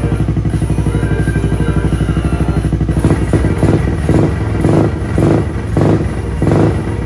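Yamaha Grand Majesty 250 scooter's single-cylinder four-stroke engine through an aftermarket DEVIL muffler, idling with an even, deep pulse, then revved in about six short throttle blips in quick succession from about three seconds in.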